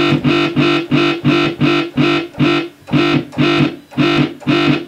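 Dubstep wobble bass from the Native Instruments Massive software synthesizer: a held bass note whose wavetable position is swept by an LFO with a falling waveform, pulsing about twice a second with a downward sweep in each wobble.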